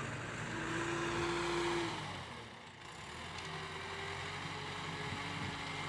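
Diesel tractor engines running steadily, heard faintly, as a front-end loader dumps soil into a trolley.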